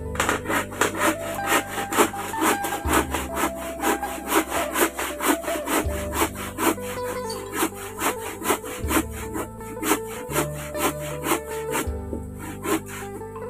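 Background music with a quick, even scraping beat, a melody and a bass line that changes every few seconds.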